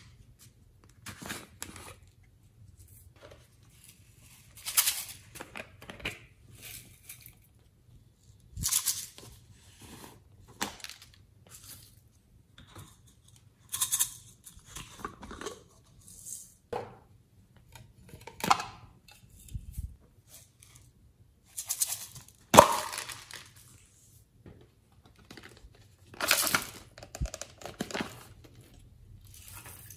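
Hands handling and opening small plastic toy containers, including a shell-shaped compact holding glitter: an irregular string of plastic clicks, rustles and crinkles. The loudest is a sharp click a little past the middle.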